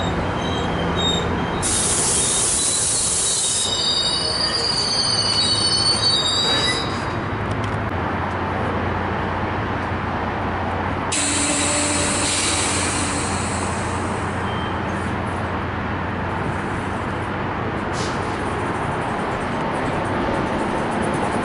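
Passenger train moving slowly alongside the platform. A steady low hum runs underneath, with two spells of air hiss. For the first several seconds there is a high, shifting metallic squeal from the wheels or brakes.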